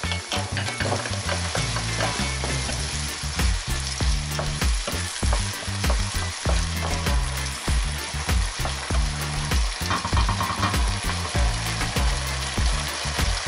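Rice, peas and peppers sizzling in a non-stick frying pan while a wooden spoon stirs them, with frequent scrapes and knocks of the spoon against the pan.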